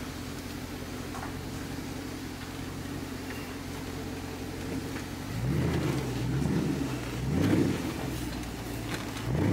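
2013 Dodge Charger SRT8's 6.4-litre HEMI V8 heard from inside the cabin, running steadily at low speed. About five seconds in, its note rises and falls under throttle twice, and gives a short third rise near the end.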